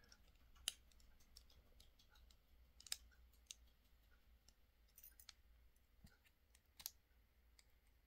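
Faint, scattered small metallic clicks and ticks of a thin steel tool catching on the circlip at the end of a brass padlock core as it is pried at; a few sharper clicks stand out, the clearest about a second in, about three seconds in and near the end.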